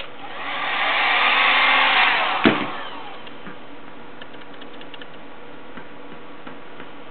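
Small handheld heat gun blowing, its airflow hiss swelling up over about a second, holding briefly, then ending with a sharp click about two and a half seconds in.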